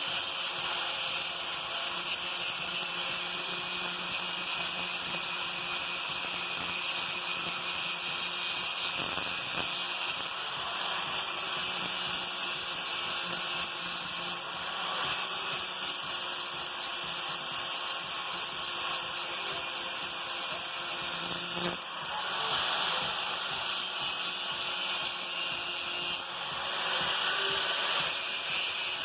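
Handheld electric grinder running and grinding the edge of a steel lawn mower blade: a steady hissing grind over the motor's whine, shifting a few times as the disc's contact with the blade changes.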